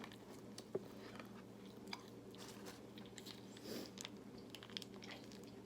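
Faint chewing and biting of fried chicken close to the microphone, with scattered small crunchy clicks, over a steady low hum.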